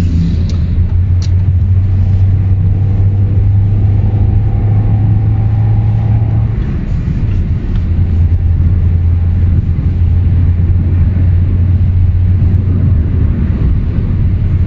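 Lada Vesta 1.8 four-cylinder with an aftermarket CBD exhaust, droning as a steady low hum heard inside the cabin while driving. About six seconds in, the drone drops away for about a second and then returns slightly lower.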